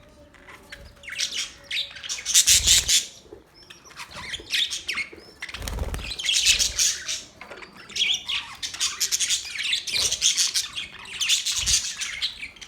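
Budgerigars chirping and chattering in repeated bursts of rapid high notes, each lasting a second or two, with a few dull low thumps among them.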